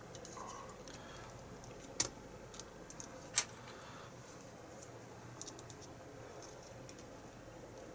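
Light metallic clicks and small rattles as thin shims are worked down beside the shackle of a cheap padlock to slip its locking pawls. Two sharper clicks come about two and three and a half seconds in.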